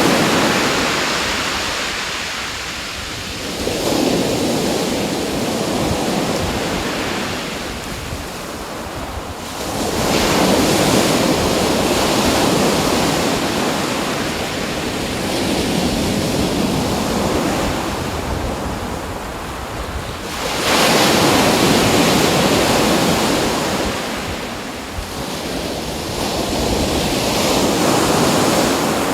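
Ocean surf: waves rush in and ease off in swells about every five to six seconds, over a low rumble of wind on the microphone.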